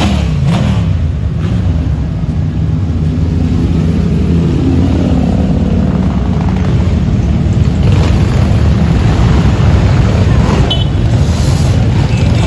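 A procession of motorcycles passing slowly one after another, their engines running at low revs in a steady low drone. It grows a little louder after about eight seconds as more bikes come close.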